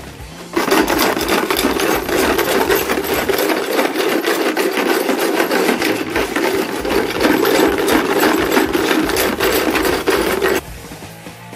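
Knife blade being stonewashed: a hand-shaken plastic tub of stones rattles and grinds continuously. It starts about half a second in and stops abruptly near the end.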